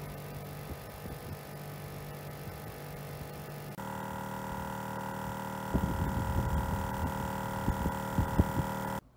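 Portable 12-volt air compressor running steadily while inflating a tire that was aired down for sand. It makes a steady hum; a little before halfway the tone shifts, and from about two-thirds in an uneven pulsing knock joins it before the sound stops abruptly near the end.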